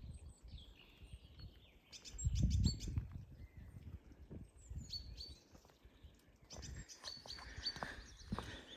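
Small songbirds chirping and calling in short high notes, with a low rumble about two seconds in and a few faint knocks near the end.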